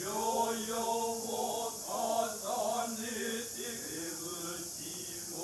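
Noh chorus (jiutai) of male voices chanting utai in unison to accompany a shimai dance, low held notes that waver slowly in pitch.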